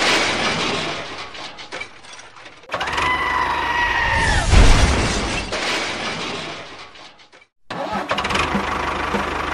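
A crash-like noise with a two-tone whistling wail that bends down and fades, and a low thud about four and a half seconds in. Near the end a small engine starts and runs steadily, with an even low pulse.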